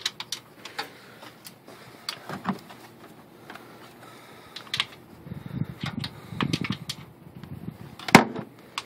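Light clicks and rattles of a timing light and its leads being handled around the engine bay, with one sharp click near the end.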